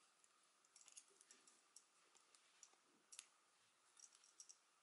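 Faint, scattered light clicks of a metal crochet hook and fingers handling yarn, over near-silent room tone.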